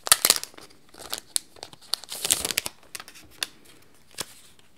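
Clear plastic sleeve crinkling as a letter set is pulled out of it. There is a burst of crackling at the start and another about two seconds in, then only a few faint ticks.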